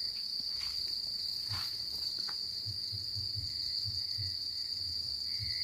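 Steady high-pitched chirring of crickets at night, with soft low thuds of footsteps on the path.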